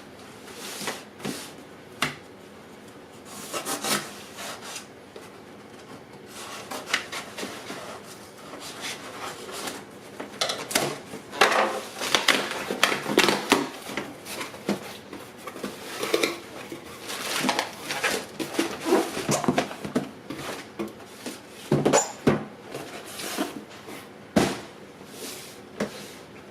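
Packaging being handled and opened: irregular rubbing, scraping and short knocks. They are sparse at first and come thick and fast in the second half.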